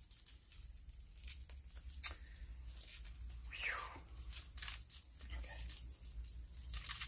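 Plastic cling wrap being picked at and pulled apart by hand: faint crinkling and tearing with scattered sharp crackles, as the wrap sticks to itself.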